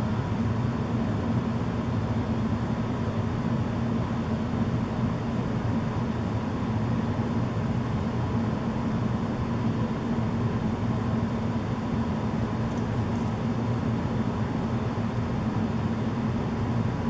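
Steady low hum with a hiss over it, unchanging throughout: room background noise.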